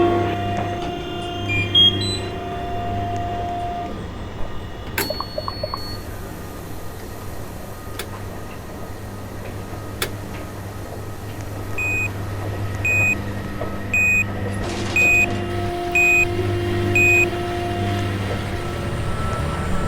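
Washing machine giving six short high beeps, about one a second, over a steady low hum, with a few sharp clicks before the beeps.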